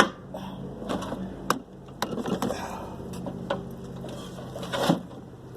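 Scattered metallic clicks and knocks of hand tools working at the RV water heater's metal fittings, with a louder knock near the end, over a steady low hum.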